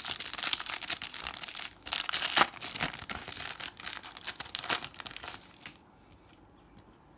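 Foil wrapper of a Panini Adrenalyn XL trading-card pack crinkling and tearing as it is pulled open by hand, stopping about six seconds in.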